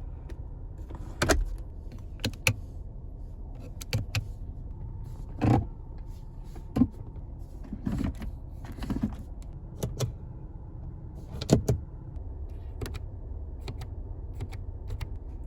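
A series of sharp clicks and knocks, more than a dozen spaced irregularly, from the switches, buttons and trim of a 2023 Seat Ateca FR's cabin being worked by hand, over a steady low rumble.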